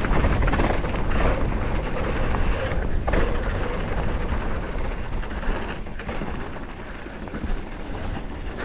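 YT Capra enduro mountain bike running fast down a dry dirt singletrack, heard from a camera on the rider: a steady low wind rumble on the microphone over tyre noise on the dirt and the rattle of chain and suspension on bumps. A sharp knock comes about three seconds in.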